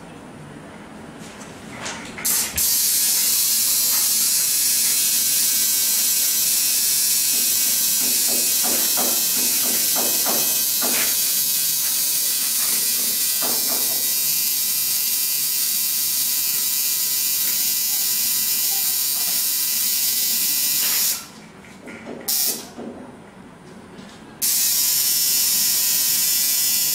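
Electric tattoo machine buzzing steadily as it inks skin. It cuts out about two thirds of the way through, gives one short burst, then starts again near the end.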